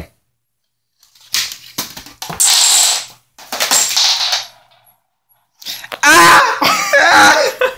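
A marble rolling and clattering along a homemade track, in stretches of a second or two that start and stop abruptly.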